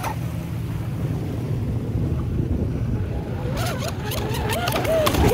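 Wind rumbling on the microphone over the sea, then, from about three and a half seconds in, a Traxxas RC boat's motor whine wavering up and down in pitch, with its hull crackling and slapping across the waves.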